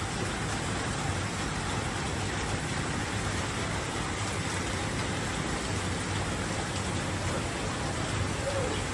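Heavy rain falling steadily, an even hiss with no let-up. A brief faint squeak comes near the end.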